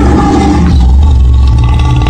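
Male lion growling, a deep, steady, low-pitched sound.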